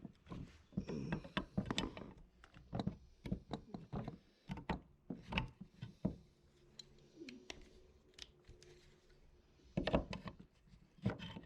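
Irregular metallic clicks, taps and knocks of hand tools (snap ring pliers and a screwdriver) working at a snap ring on a drum brake's parking brake lever, with a quieter stretch in the middle.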